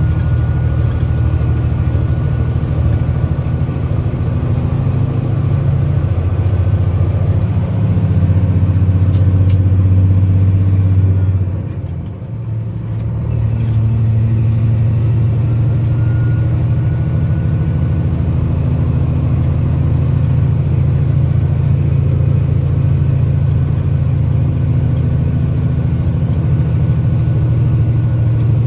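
Peterbilt semi truck's diesel engine pulling steadily, with a constant low hum and a thin high whine. About halfway through, the engine sound drops away for a couple of seconds, the whine sliding down in pitch and back up, then it pulls again.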